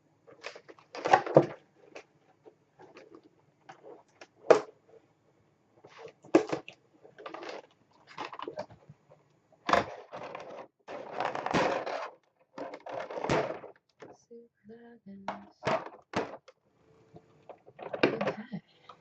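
Cardboard box and plastic packaging being cut and opened with a hobby knife: tape slit, flaps and trays pulled, with irregular scrapes, rustles and light knocks.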